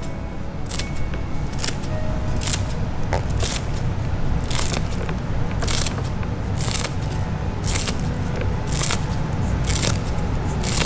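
Dexter kitchen scissors snipping green onions (scallions) into small pieces, one crisp cut about every second, over background music.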